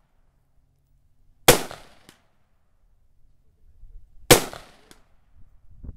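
Two shots from an AR-15-style rifle, about three seconds apart, each followed by a short echo trailing off.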